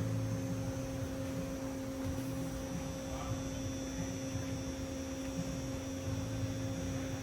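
A steady hum-like test tone with a fainter overtone, played through car audio speakers driven by the amplifier while its gains and crossovers are set.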